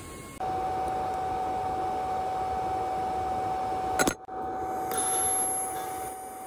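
TIG (GTAW) welding arc on 316L stainless steel pipe during the root pass: a steady hiss with a constant whine. A sharp click and a brief break come about four seconds in, then the hiss resumes.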